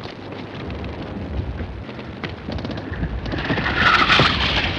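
Battle sound effects: a steady rumble of distant shelling with scattered sharp shots, growing louder, and a loud hissing rush in the last second or so.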